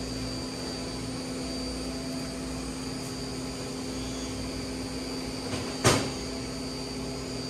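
Steady machine hum with a low drone and a thin high whine, like air conditioning or equipment fans. A single sharp knock comes about six seconds in.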